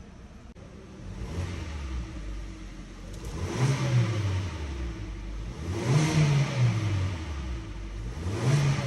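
Kia Sonet K-Style engine through its stock exhaust, idling and then revved three times, each rev rising in pitch and falling back toward idle.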